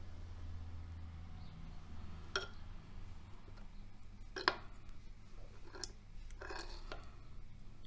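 Metal teaspoon clinking and scraping against a terracotta clay bowl while scooping baked rice pudding: a handful of light, scattered clicks, the sharpest about four and a half seconds in, over a low steady hum.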